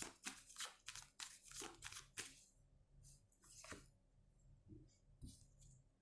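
Tarot cards being shuffled and handled: quick, faint flicks and rustles, packed close together at first and thinning out to a few scattered ones after about two and a half seconds.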